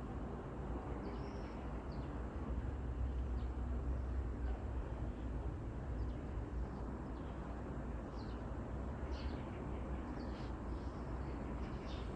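Steady low background noise with short, faint high-pitched chirps scattered through it, a few every couple of seconds.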